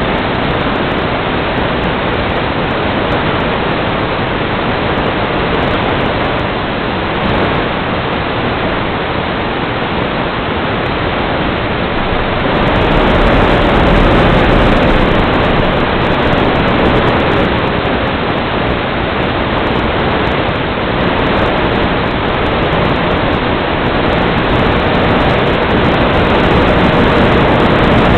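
Loud, steady static hiss on the audio of an analog FPV video link, with no speech or distinct events. It grows a little louder about halfway through, and a faint steady hum sits underneath it.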